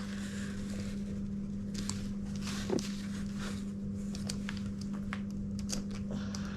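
Scattered faint clicks and scrapes of a metal key being worked in the lock hole of a detachable roller skate base plate that will not release the shoe, over a steady low hum.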